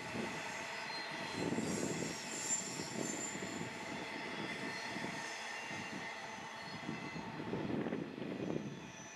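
Loaded freight wagons of a gypsum train rolling past on a curve, their wheels squealing with several steady high tones over a low rolling rumble, while the Class 66 diesel locomotive at the head works away with a distant engine drone. The sound eases slightly near the end.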